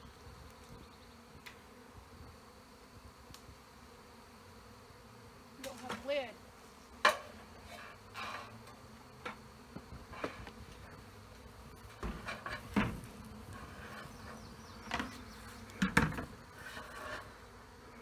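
A swarm of honeybees buzzing steadily all around, with single bees gliding up and down in pitch as they fly close. Several sharp knocks and clatters cut through it, loudest about seven and sixteen seconds in.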